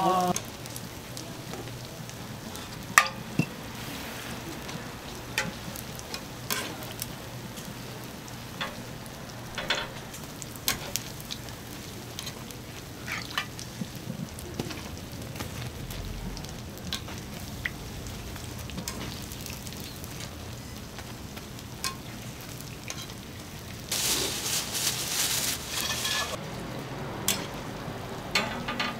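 Sorghum hotteok frying in shallow oil on a griddle, with a steady sizzle. Sharp clicks of metal tongs come every second or so, and a louder surge of sizzling lasts about two seconds near the end.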